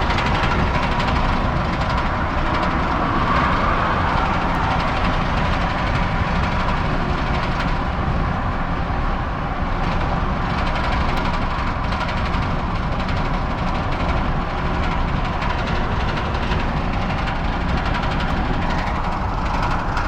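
Ford F-250's 6.7 L Power Stroke V8 diesel running steadily with a knocking noise from the engine, which the owner presents as an engine knock.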